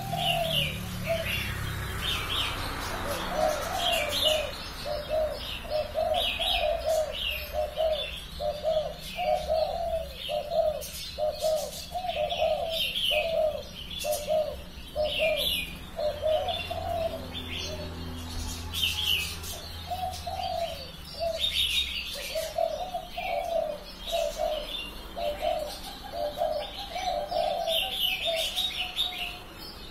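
A caged spotted dove (terkukur) kept as a lure bird, giving a long run of repeated coos with a couple of short pauses past the middle. Small birds chirp high above it throughout.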